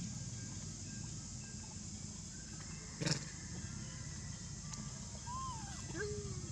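Two short, high macaque calls near the end, the first arching up and down, the second falling in pitch, over a steady low hum and a steady high hiss. A sharp click about halfway through is the loudest sound.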